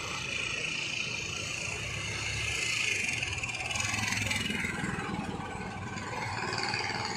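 Street traffic: a motor vehicle running past, its engine noise growing louder through the middle and easing off again.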